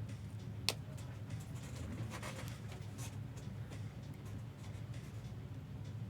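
Trading cards and foil packs being handled, with light rustling and scratching and one sharp click a little under a second in, over a steady low hum.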